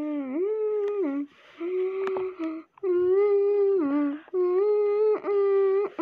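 A person humming a slow tune in held notes about a second long, with short breaks between phrases.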